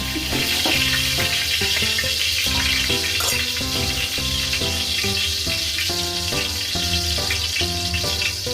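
Hot cooking oil sizzling and spattering steadily in a frying pan, with background music playing underneath.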